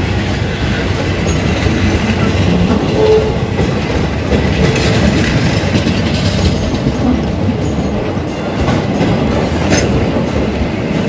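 Train running along the track: a steady, loud rumble of wheels on rail, with a few sharp clicks, one near the end.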